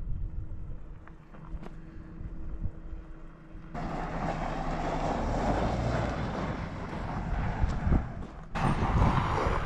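Subaru Outback driving on loose dirt, its engine and tyres crunching as it passes and pulls away. Under it is low wind rumble on the microphone. The sound jumps much louder about four seconds in.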